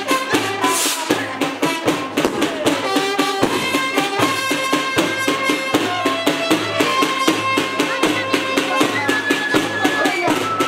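Music with a fast, steady percussive beat and a melody of held notes over it.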